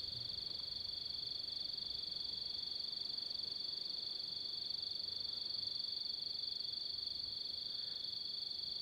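Crickets chirping in a steady night chorus: a continuous high trill that goes on without a break.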